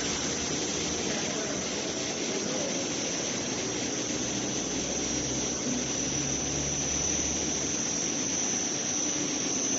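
Welding-wire drawing and copper-coating machinery running: a steady mechanical whir with a constant high-pitched whine over a low hum.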